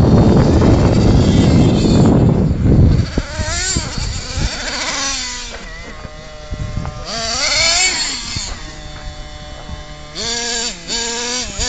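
Small nitro engine of a CEN Genesis RC monster truck revving, its high-pitched tone rising and falling in quick throttle blips with steadier stretches between, after about three seconds of wind rumbling on the microphone.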